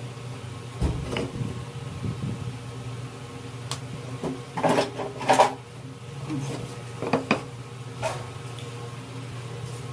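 Irregular knocks and clatters of wooden pieces and hand tools being handled and set down on a workbench, the loudest pair about five seconds in, over a steady low hum.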